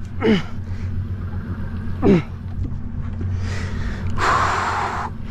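An out-of-breath angler's strained gasps and groans as he cranks a heavy fish up on a conventional reel: two falling groans in the first half, then a loud rushing breath-like burst near the end. A steady low hum runs underneath.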